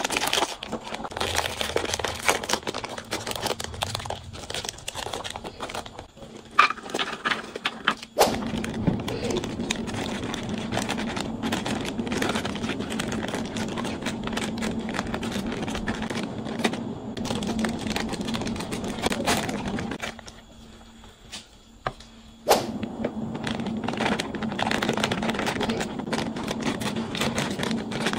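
Plastic snack wrappers and a paper biscuit carton being handled, crinkled and torn open by hand: continuous rustling and crackling with occasional sharp snaps, easing off briefly about two-thirds of the way through. A faint steady low hum runs underneath.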